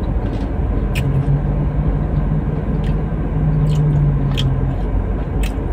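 Steady low rumble of a car running, heard inside the cabin, with a few short clicks of chewing and eating. A low level hum holds for about three and a half seconds from about a second in.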